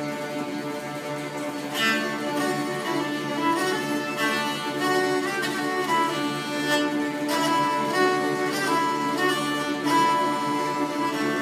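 Ensemble of dulcimers, bowed dulcimers, violins and a cello playing a tune together, the sound growing fuller about two seconds in.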